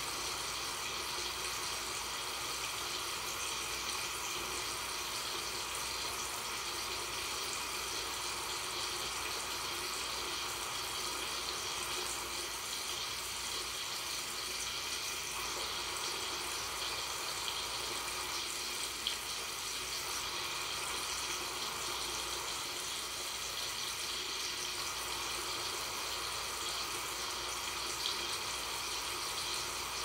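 Water running steadily from a tap into a sink, an unbroken hiss and splash, with two faint ticks in the second half.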